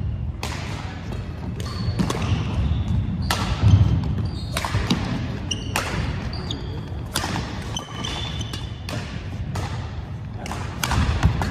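Badminton rackets striking a shuttlecock in a rally, sharp cracks about once a second, with sneakers squeaking on the hardwood gym floor between shots.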